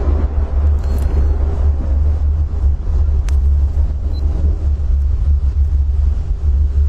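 A loud, steady, deep low rumble, with one faint click a little over three seconds in.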